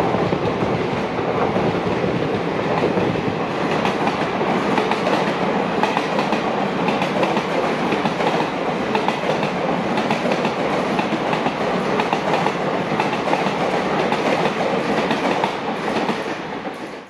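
Indian Railways express passenger coaches rolling past at speed: a steady rumble of wheels on rail with a repeated clatter over the rail joints. The sound fades out near the end.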